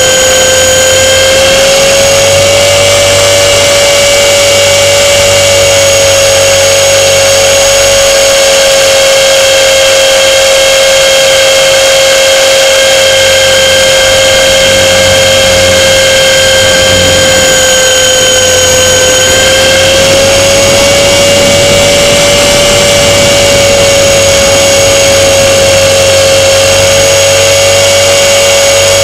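Motor and propeller of a small radio-controlled plane, heard from a camera mounted on the airframe: a very loud, steady whine whose pitch drifts slightly, dipping a little past the middle and rising again shortly after.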